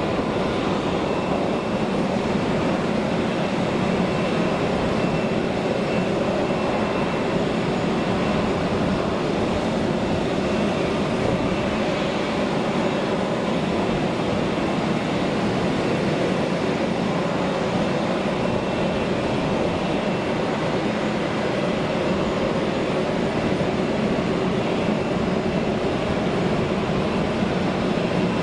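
Steady airport apron noise: the even rumble of airliner jet engines idling and taxiing, with a faint steady high whine.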